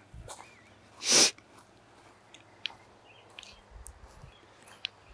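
A short, loud breathy exhale, a puff of breath close to the microphone, about a second in, followed by faint scattered ticks and a few brief high chirps.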